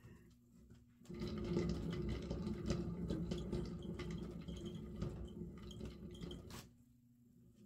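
Homemade, rickety paint-pouring spinner turning with a wet canvas on it, rattling and clattering steadily. It starts about a second in and stops abruptly near the end.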